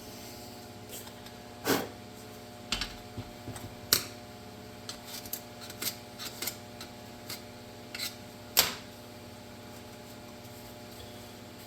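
Scattered light clicks and taps of small parts and tools being handled, a dozen or so irregular ones, over a steady low hum.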